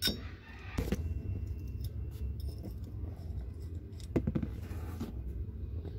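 Handling noise: a few scattered light clicks and clinks from the small metal parts of a 12 V cigarette-lighter socket being turned in the hand, with a small cluster about four seconds in, over a steady low rumble.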